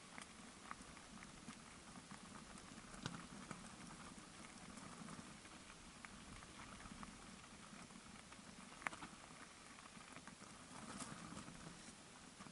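Mountain bike tyres rolling down a loose gravel track: a faint, steady crunch with scattered sharp clicks and rattles from stones and the bike, the strongest about three seconds in and again near nine seconds.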